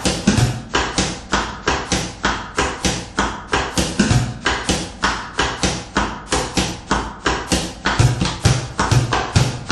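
Bucket drumming: drumsticks beating a steady, even rhythm on upturned plastic buckets, about four to five strikes a second. Deeper hits on the bucket bottoms come in now and then, more often near the end.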